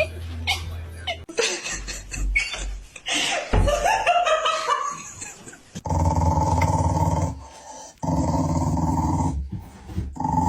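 A dog whining and yipping, then growling in three long, drawn-out stretches in the second half.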